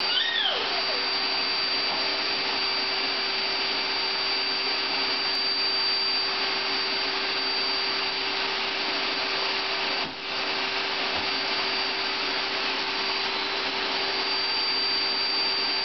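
Canister vacuum cleaner running steadily: rushing air with a steady whine over it. The sound dips briefly about ten seconds in.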